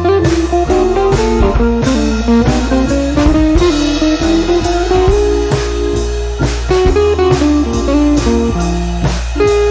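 Guitar-led background music with a steady bass line and beat.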